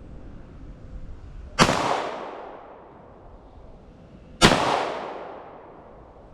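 Two 9 mm Glock 19 pistol shots, about three seconds apart, each followed by about a second of echo dying away.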